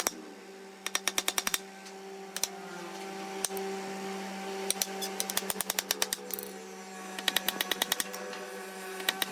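Bursts of rapid sharp clicks from a workshop tool, about ten a second, with pauses between, over a steady hum.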